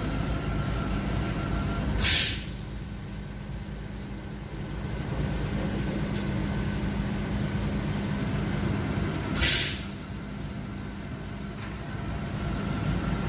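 Flow Mach2 CNC waterjet cutting system running with a steady hum, broken twice by a short, loud hiss about seven seconds apart.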